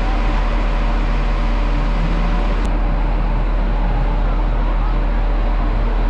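Steady, loud vehicle and street noise with a constant low rumble. No single car is heard passing by.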